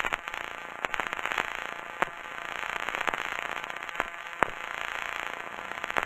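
Static hiss with irregular sharp crackles and pops, a glitch-style sound effect that cuts off suddenly near the end.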